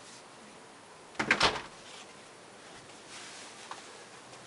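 A short clatter of several sharp knocks about a second in, over faint steady background hiss.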